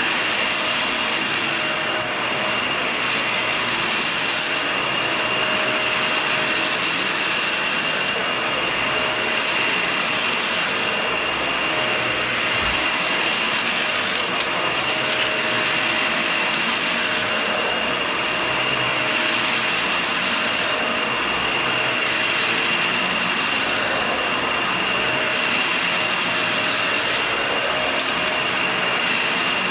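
Vacuum cleaner running steadily with a high whine as it is worked over a shag rug. Its sound shifts in a regular rhythm every two to three seconds, with a few short clicks.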